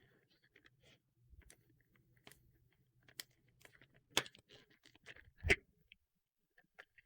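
Packaging being opened by hand: crinkling and light clicks, with two sharper knocks about four and five and a half seconds in.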